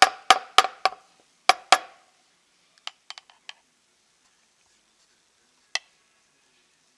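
A run of sharp knocks with a short ring, about three a second, as kitchenware is tapped against the counter; they stop about two seconds in. A few lighter clicks follow about three seconds in, and a single click near six seconds.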